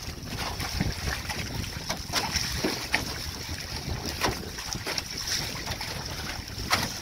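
Wind buffeting the microphone over a steady rush of water along an aluminum canoe's hull as it sails through chop, with irregular splashes against the side, the loudest near the end.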